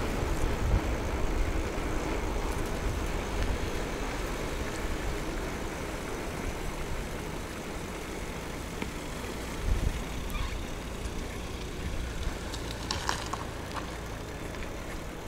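Steady low rumble of road and traffic noise heard from a moving bicycle, with motor vehicles around. A low swell about ten seconds in and a few sharp clicks a few seconds later.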